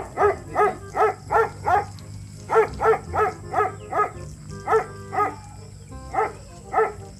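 A dog barking repeatedly, short sharp barks in quick runs of two to six, about three a second, with brief pauses between the runs.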